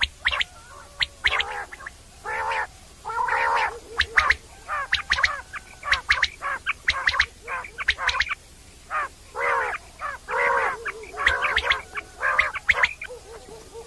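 Common quail calling: a rapid, irregular run of short sharp notes mixed with longer calls of about half a second, repeated throughout.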